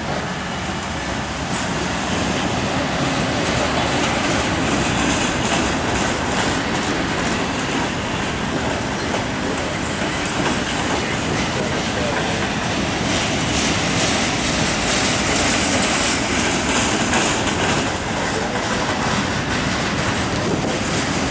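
Freight train cars rolling past at steady speed, their wheels clattering over the rail joints with a constant rumble and hiss. The high-pitched rail noise grows stronger for a few seconds in the middle.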